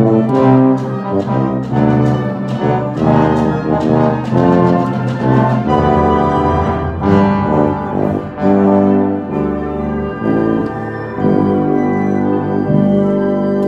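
Wind orchestra playing, with a tuba right at the microphone carrying a low bass line under the brass. Short, accented rhythmic chords for the first several seconds give way to longer held chords, slightly softer near the end.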